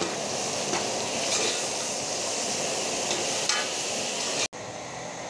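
Sizzling of tomatoes, green chillies, onions and bitter gourd frying in ghee, with a spoon stirring through the pot and a few light scrapes. The sizzle cuts out abruptly about four and a half seconds in and comes back quieter.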